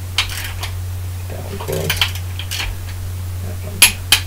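Click-type torque wrench ratcheting and clicking as the main bearing cap bolts are brought up to torque, with light metal clinks. Two sharp clicks close together near the end are the wrench breaking over at its set torque. A steady low hum runs underneath.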